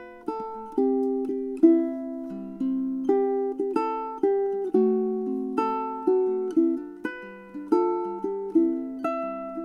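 Kanilea 2023 Platinum koa ukulele played solo: a steady run of plucked chords and melody notes, each starting sharply and left to ring.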